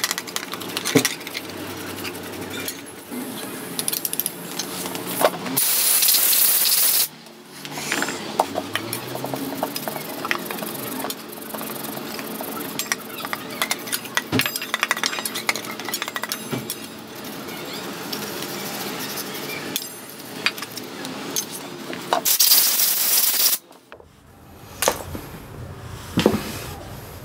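A stiff brush scrubbing a metal starter-motor part in a steel bowl of cleaning liquid, with clinks and scrapes of metal against the bowl. Two loud hissing bursts cut in, about six seconds in and again near the end, each lasting a second or more.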